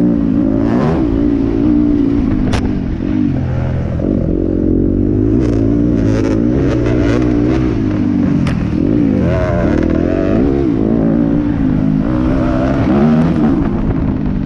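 2018 Yamaha WR250F single-cylinder four-stroke enduro bike with an Akrapovic exhaust being ridden, its engine pitch rising and falling again and again as the throttle opens and closes. Scattered knocks and rattles run through it.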